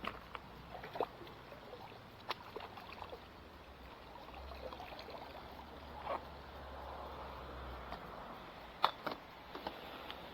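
Faint trickling water with scattered light clicks and knocks, several of them a little louder about two, six and nine seconds in, over a low steady hum.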